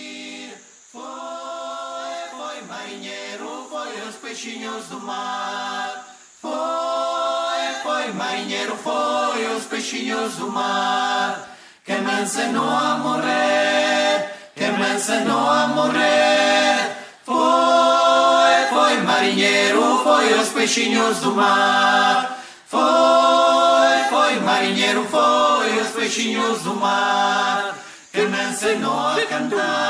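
Unaccompanied voices singing a cappella: a slow song in a Romance language, sung in phrases of a few seconds with short breaks between them.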